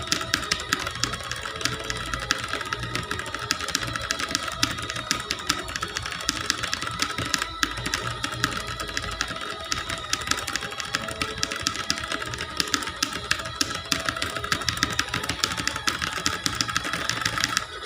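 Clicky keyboard being typed on fast: a dense, continuous run of sharp key clicks, with steady high tones underneath.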